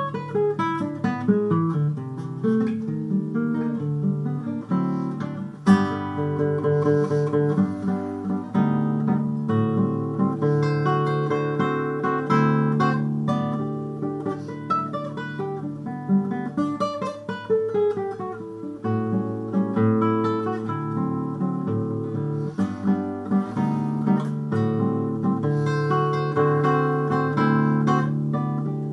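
Acoustic guitar playing a Brazilian choro-style piece: a plucked melody over bass notes, with a sharp strummed chord about six seconds in.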